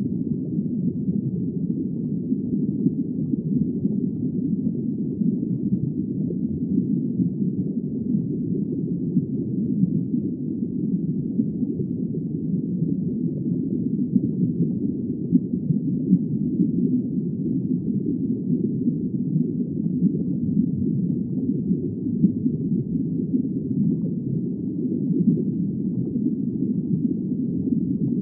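Steady, low, muffled underwater ambience: an even wash of water noise with nothing bright or high in it and no distinct calls or events.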